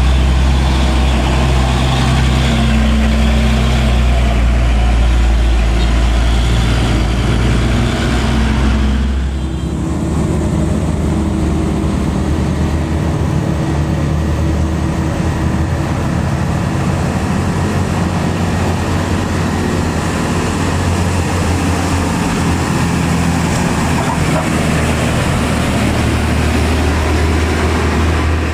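Heavy diesel truck engine running with a deep, steady note; about nine seconds in the sound changes abruptly to a different, steady truck engine note.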